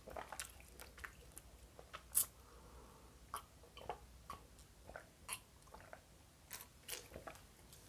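Faint mouth sounds of drinking orange juice from a glass: scattered swallows and lip smacks, the loudest about two seconds in.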